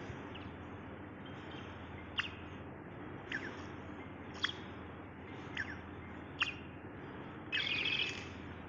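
A bird calling: about five short, sharp chirps that sweep down in pitch, roughly a second apart, then a longer, louder twittering phrase near the end, over a steady background hum.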